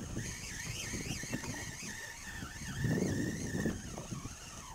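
Spinning fishing reel being cranked to bring in a hooked fish, giving a thin, wavering high whine that rises and dips in time with the handle. A louder rush of wind and water comes about three seconds in.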